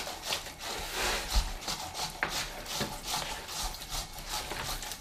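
Bare hands kneading dough in a plastic mixing bowl: irregular squishing and rubbing strokes, with a dull knock about a second and a half in.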